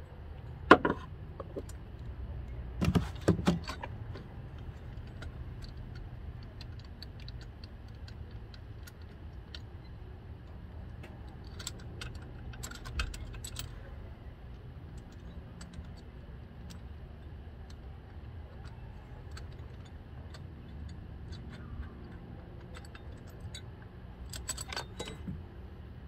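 Metal tools and fittings clinking as hands work around the turbocharger in a car's engine bay. A sharp clink comes about a second in, a cluster of clanks around three seconds, then scattered light ticks, and more clinking near the end, all over a steady low hum.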